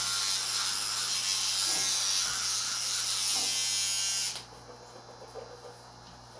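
Electric toothbrush buzzing steadily while brushing teeth, switched off suddenly about four seconds in.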